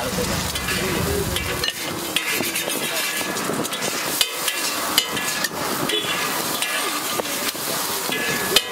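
Scrambled egg sizzling on a large flat griddle while a metal spatula scrapes and chops through it, with repeated clicks of the blade on the plate and a sharper clack near the end.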